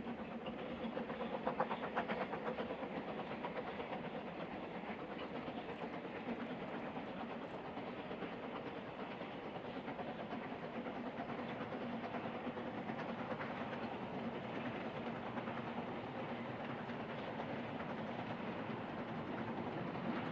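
Narrow-gauge steam train running along the line, with rail clatter and a steady low hum, and a quick run of knocks about two seconds in.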